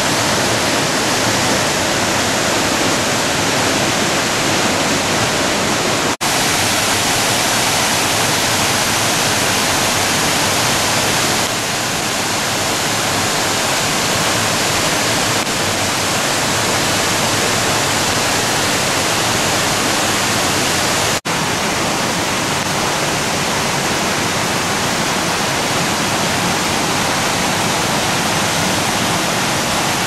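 A tiered mountain waterfall pouring into rock pools, giving a loud, steady rush of falling water. The sound breaks off for an instant twice, about six and twenty-one seconds in.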